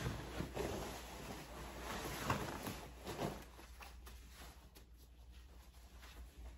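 Fabric rustling of a camouflage uniform jacket being pulled on, with a few short scuffs, then quieter handling as the sleeve cuffs are adjusted about three and a half seconds in.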